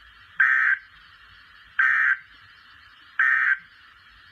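Three short, identical bursts of Emergency Alert System digital data tones, each about a third of a second long and about 1.4 s apart. This is the end-of-message code that closes an EAS weather warning. A faint steady radio hiss runs underneath.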